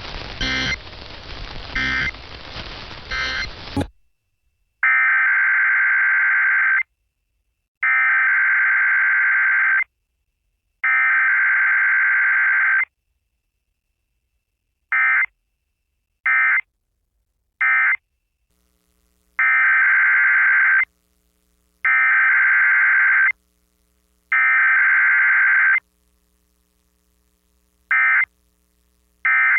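Emergency Alert System digital data bursts, the harsh buzzing SAME tones. Three long header bursts of about two seconds each are followed by three short end-of-message bursts, and the set of three long then three short comes round a second time. Over the first few seconds, three short bursts sound through a noisy recording.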